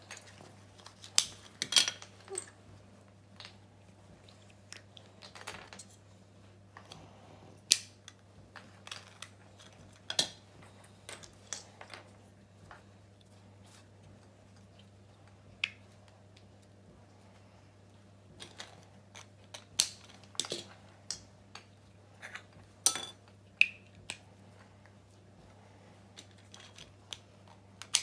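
Irregular clicks and light clatter of small plastic Lego pieces being handled and pressed together, with wheel parts being fitted onto a toy car chassis.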